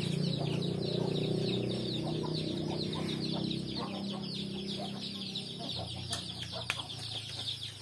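Chickens clucking in a farmyard, over a constant high chirping and a low steady hum.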